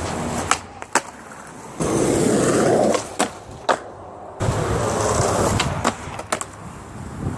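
Skateboard wheels rolling on pavement, broken by sharp clacks of the board striking the ground, three pairs about half a second apart.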